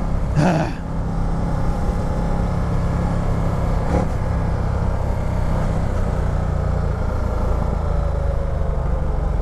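Ducati Multistrada 1200's Testastretta L-twin engine running in third gear under way, with wind and road noise. Its note falls slowly through the second half as the bike slows.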